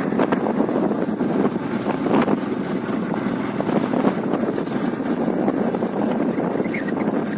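Steady road and wind noise from a vehicle driving along a highway, an even rumble without any distinct engine note.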